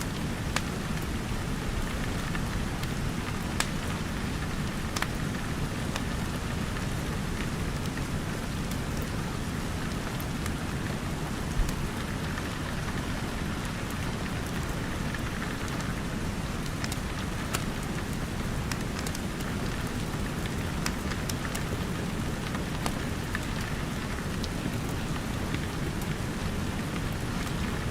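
Steady rain falling on a roof and windows, with a crackling wood fire whose occasional sharp pops stand out a few seconds apart, the loudest about twelve seconds in.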